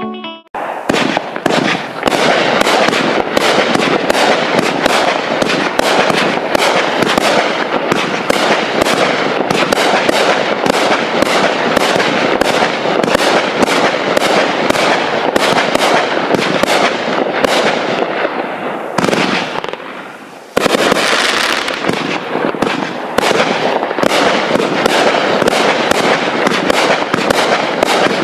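Raccoon Fireworks Nishiki Mine 500-gram, 56-shot cake firing: a rapid, dense run of shots and bursts. It thins out and fades about eighteen seconds in, then comes back suddenly and loud about twenty seconds in.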